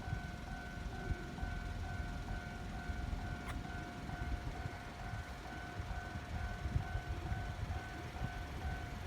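Japanese railway level-crossing alarm ringing its 'kan-kan' in steady, evenly spaced strokes, warning that a train is approaching, over a low rumble.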